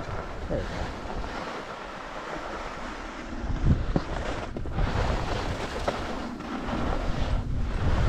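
Wind buffeting a GoPro's microphone at skiing speed, with the hiss of skis sliding over snow. It grows louder in the second half.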